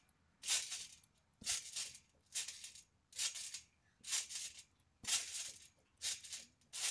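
Trampoline bouncing: a rattly, swishing burst from the springs and mat with each bounce, in an even rhythm of a little more than one a second.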